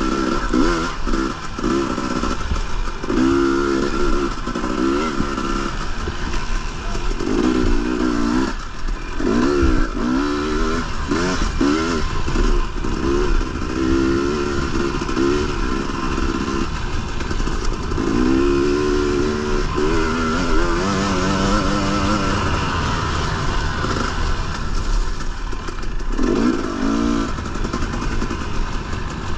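Dirt bike engine revving hard and easing off again and again, its pitch rising and falling with the throttle, with short dips between pulls.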